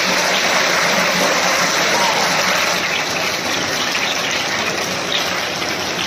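Steady crowd noise from a hall full of seated schoolchildren, many voices chattering at once.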